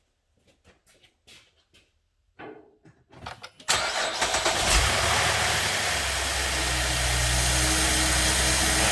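Faint clicks and knocks, then about a third of the way in the 2012 Chevrolet Traverse's 3.6-litre V6 starts at once with a short flare of revs. It then settles into a steady idle, started to verify the repair of the EVAP fault behind its no-start after fueling.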